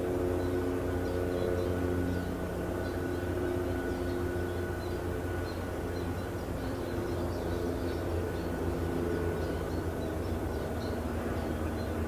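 Steady low drone of a distant engine, with a pitched hum that slowly wavers and fades in and out. Faint high chirps repeat over it.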